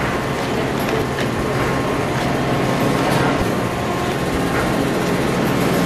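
Food-packing conveyor machinery running: a steady mechanical hum with a thin high tone and a few light ticks.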